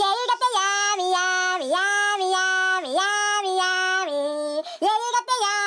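A high voice singing long held notes, dipping in pitch twice and stepping lower about four seconds in, with a short break near the end.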